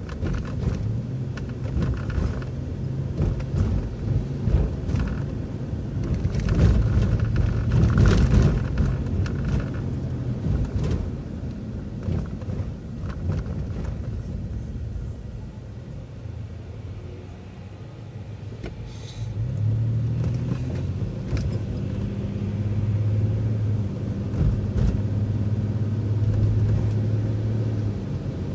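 Inside a city transit bus on the move: the engine and drivetrain keep up a steady low drone, with rattles and knocks from the body. The drone is loudest about a quarter of the way in, falls off a little past the middle as the bus slows, and picks up again about two-thirds of the way through as it pulls ahead.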